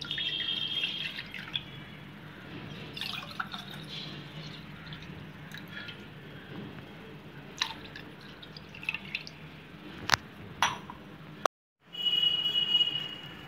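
Milk poured from a steel tumbler into a glass bowl, the stream splashing for a second or so, then a few light clinks of steel and glass being set down, over a steady low hum. Near the end, after a brief break, there is a short, loud, high ringing sound.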